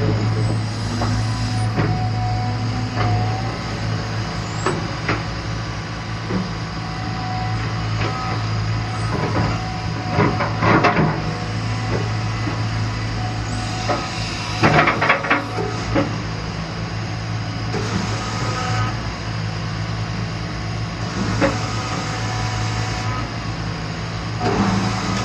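Cat 320 excavator's diesel engine running steadily, with several bursts of metallic clanks and knocks from the working machine about ten and fifteen seconds in, and spells of high hiss.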